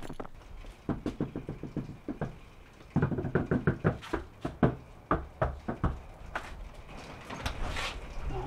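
Rapid banging on a front door: many quick knocks in a short run about a second in, then a longer, faster run from about three seconds.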